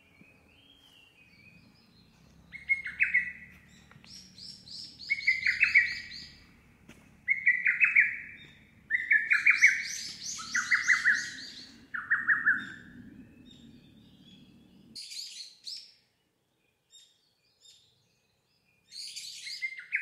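Lesser cuckoo (hototogisu) singing its sharp, clipped phrase again and again, about every second and a half, with other small birds twittering higher above it.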